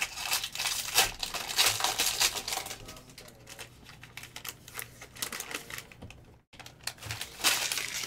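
Foil trading-card pack wrapper crinkling and tearing as it is pulled open by hand. Dense crackling for the first three seconds, a quieter stretch, then more crinkling near the end.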